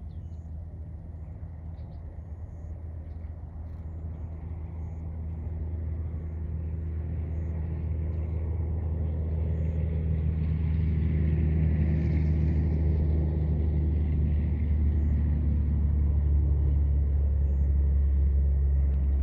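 A motor engine running with a steady low hum, growing louder over several seconds and then holding steady.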